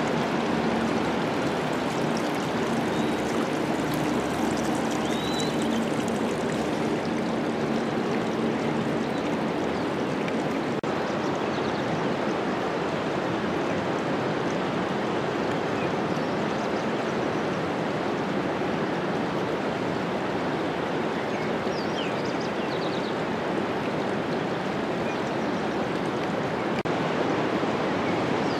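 Steady rush of fast-running water, with a few faint high chirps.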